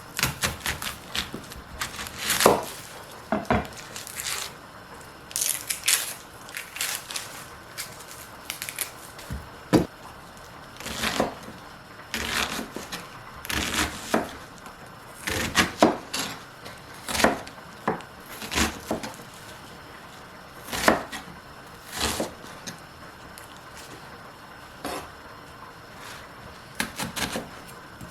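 Kitchen prep sounds: irregular knocks and clatter of utensils and dishes on a counter and cutting board, with a quieter stretch about three quarters of the way through.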